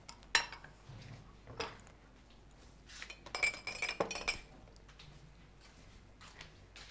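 Glassware and dishes clinking as they are moved and set down on a kitchen counter: a few light knocks, then a run of ringing glass clinks about three to four seconds in.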